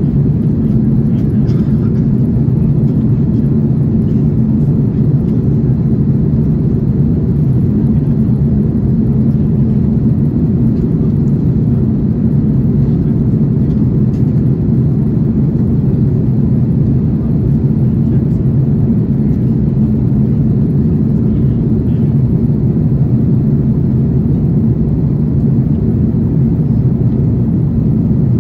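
Airbus A330-300 cabin noise in cruise-level flight: a steady low rumble of engines and rushing air with a constant low hum, heard from a window seat.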